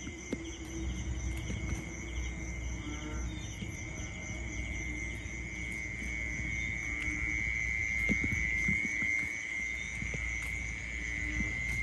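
Night insects chirring, a steady high-pitched drone with a fainter pulsing trill above it, under a low rumble and a few soft clicks.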